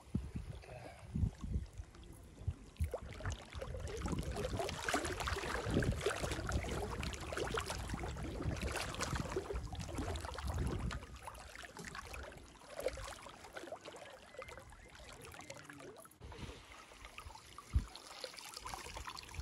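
Lake water sloshing and splashing around a person wading chest-deep and pushing a hand net through water weeds, busiest in the middle, with a sharp knock near the end.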